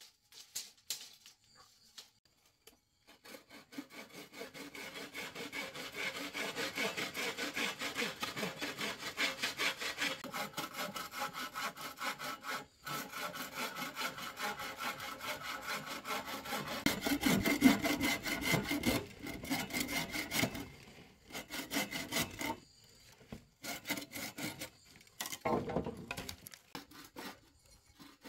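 Hand saw cutting in quick, steady back-and-forth strokes, starting about three seconds in. Near the end it breaks into short spells with pauses between them.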